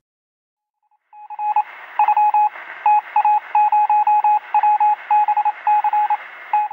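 Electronic beeping sound effect: a single-pitch tone switched on and off in an irregular run of short and longer beeps over a thin radio-like hiss, starting about a second in.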